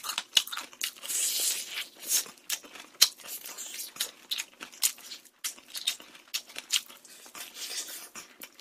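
Close-miked crunching and chewing of crispy rice-battered fried chicken, a rapid irregular run of crackles and crunches.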